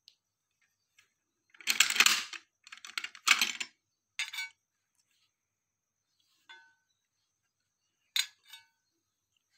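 Steel action parts of a magazine-fed 12-bore repeater shotgun scraping and sliding as it is field-stripped: the receiver cover and bolt carrier are drawn along the receiver, giving a few rough slides in the first half, then a few light metallic clinks as parts are set down.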